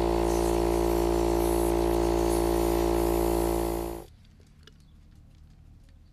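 Smittybilt 12V portable tire air compressor running with a steady, even hum, then stopping about four seconds in. Faint clicks follow as the air chuck is fitted to the tire valve.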